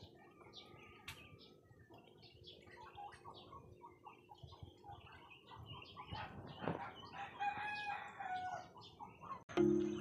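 Farmyard ducks and fowl calling: a busy chatter of short high calls, rising to louder, drawn-out calls about seven seconds in. Music comes in near the end.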